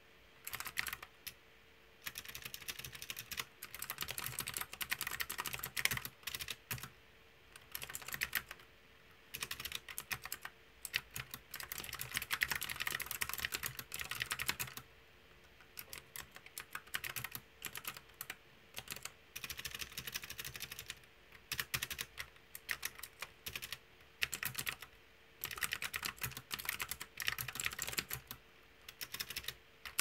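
Fast typing on a mechanical keyboard with round, typewriter-style keycaps: a dense clatter of key clicks in runs of several seconds, broken by short pauses. A faint steady hum sits underneath.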